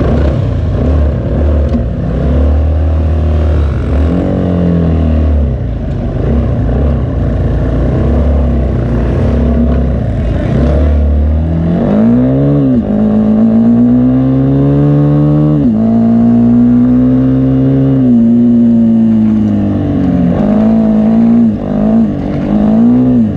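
Loud racing vehicle engine: a deep, steady rumble for about the first half, then revving hard, its pitch climbing, holding and dropping several times.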